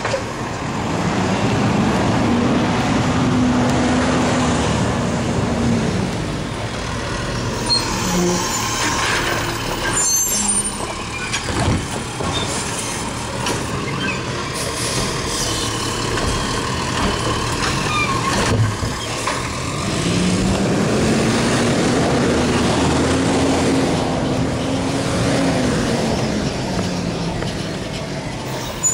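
Automated side-loader garbage truck's diesel engine revving up and back down twice as it drives the hydraulic arm that lifts and dumps a trash cart. Between the two revs there are a few sharp knocks and clanks.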